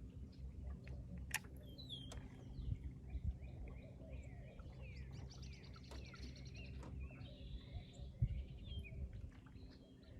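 Several songbirds chirping and trilling in the background over a low steady hum, with a few sharp knocks, the loudest about eight seconds in.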